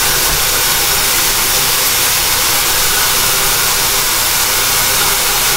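Kitchen tap running at full flow, a loud steady rushing hiss of water, as bottles are rinsed under it to soften and remove their labels.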